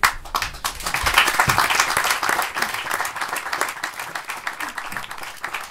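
Theatre audience applauding: many hands clapping, loudest in the first few seconds and easing off a little toward the end.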